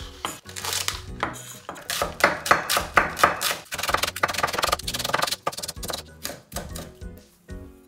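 Kitchen knife slicing a green onion into thin rounds on a bamboo cutting board: a fast, even run of knocks of the blade on the wood, tapering off near the end. Soft background music plays underneath.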